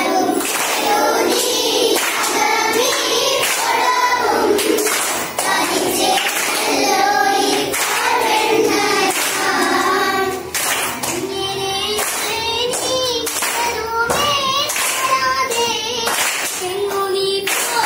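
A group of children singing a Malayalam poem together, to a folk-song tune, with hand-clapping along in the later part.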